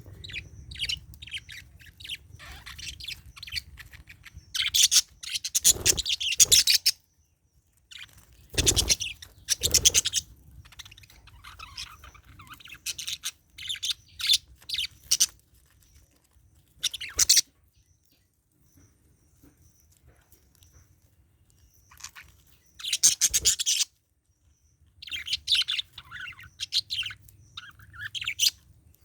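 Budgerigars chirping and chattering in on-and-off bursts, with a few louder bursts and short quiet pauses between them.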